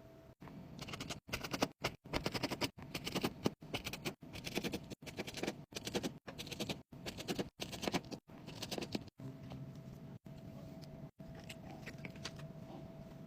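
Sped-up repair-bench handling noise from a phone teardown: rapid clicks, taps and scraping of tools on the phone, chopped into short pieces with brief gaps between them. In the last few seconds the clicking thins out and a faint steady hum comes through.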